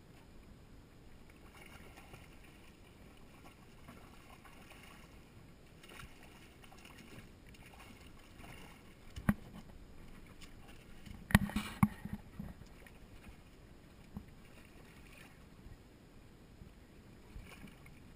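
Water lapping faintly against a small fishing boat's hull, with a sharp knock about nine seconds in and a quick cluster of loud knocks a couple of seconds later.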